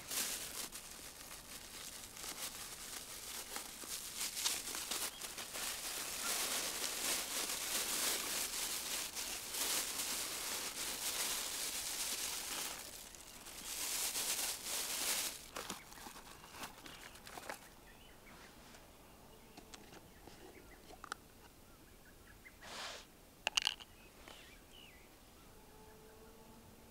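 Crinkling and rustling of plastic packaging or a plastic bag being handled, in uneven swells, stopping about two-thirds of the way through; a few soft clicks and knocks follow.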